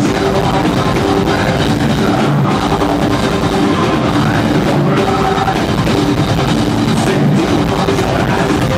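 Heavy metal band playing live: distorted electric guitars over a pounding drum kit, loud and dense, heard from the audience in a concert hall.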